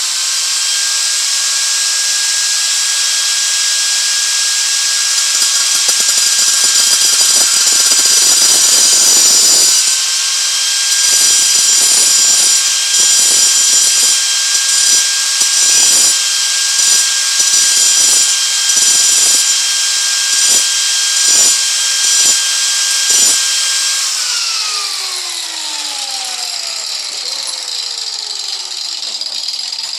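A high-speed power tool whining steadily while it cuts through metal screws clamped in a mini vice: one long cut, then about a dozen short passes. Near the end it is switched off and winds down with falling pitch.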